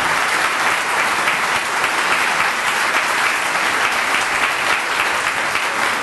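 Audience applauding steadily at the end of a speech.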